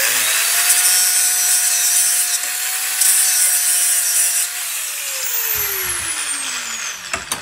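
Angle grinder with a thin cut-off disc grinding the cut end of a steel bar, the disc's edge used in place of a grinding wheel: a steady whine with a harsh grinding hiss. About four and a half seconds in the motor is switched off and its whine falls in pitch as it spins down.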